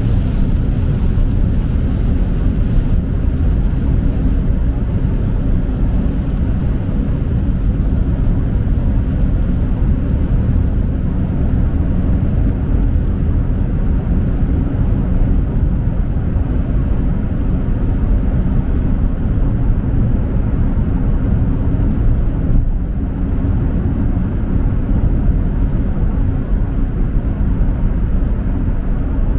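Steady low rumble of a car in motion on a wet highway, heard from inside the cabin: tyre and road noise.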